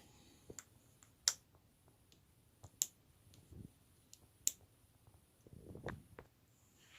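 Lego bricks being handled and pressed onto a build: a series of sharp, irregular plastic clicks, the loudest about a second in, near three seconds and about four and a half seconds in, with a few soft knocks between.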